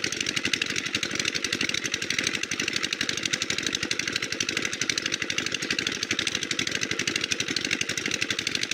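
Small engine running steadily with a rapid, even pulsing.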